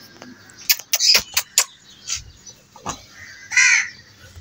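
Crows cawing: a harsh call about a second in and another near the end, with a few sharp clicks around the first call.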